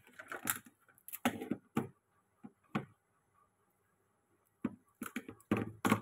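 Legs of a raw blue swimmer crab being snapped off by hand: a scattered series of short cracks and clicks of shell, with several coming close together near the end.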